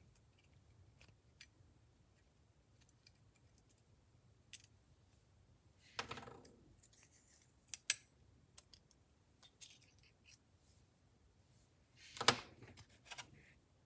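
Quiet metal clicks and scrapes as a penny unscrews the blade screw of a Gerber EAB Lite stainless-steel folding utility knife and the old blade is taken out. There are louder clinks about six, eight and twelve seconds in.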